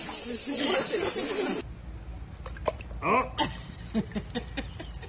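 Loud, steady chorus of insects with voices under it, cutting off abruptly about a second and a half in. After that it is much quieter, with scattered clicks and a brief voice.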